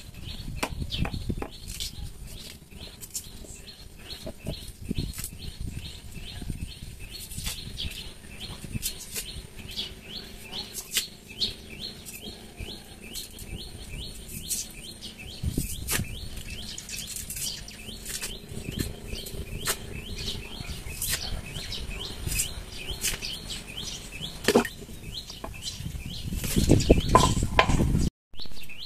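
Small birds chirping quickly and continuously, over knocks and scraping of cassava roots being handled and peeled with a knife, which are loudest near the end.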